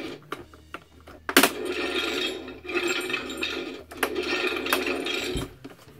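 Hasbro Marvel Legends Infinity Gauntlet's articulated plastic fingers clicking and rattling as the hand inside flexes them. A sharp click comes about a second and a half in, then three or four rasping stretches of about a second each.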